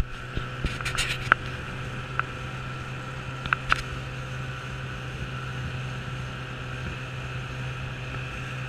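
Small motorboat's engine running steadily at speed, a constant low drone over the rush of water and wake. A few sharp knocks come in the first four seconds.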